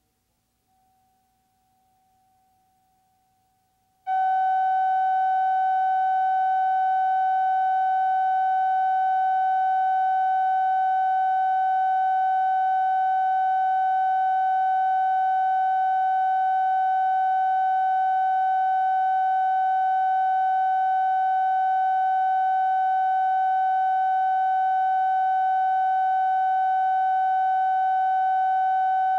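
Steady electronic test tone, the line-up reference tone that goes with colour bars on a videotape. It is faint at first, then comes on loud about four seconds in and holds at one pitch.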